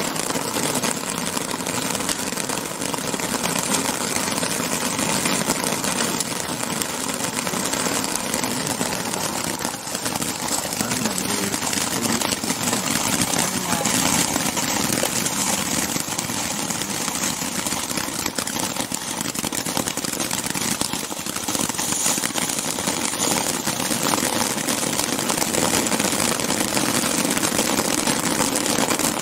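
Ground firework fountains from a Jonathan's Fireworks 'Big Bash' selection box gushing sparks one after another: a steady, unbroken rushing hiss.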